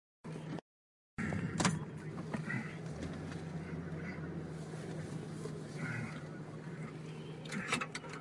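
Car cabin noise while driving: a steady hum of engine and tyres with a constant low tone, with a few sharp clicks. The sound cuts out completely twice in the first second.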